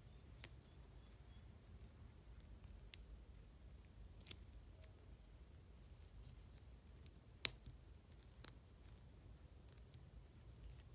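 Sparse small clicks and faint crinkling as packaging is handled, with one sharper click about seven and a half seconds in.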